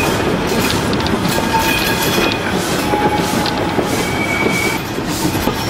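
Standard-gauge heritage railway carriages running at speed on a curve: a steady rumble of wheels on rail with clicks over the rail joints, and several short high squeals from the wheel flanges.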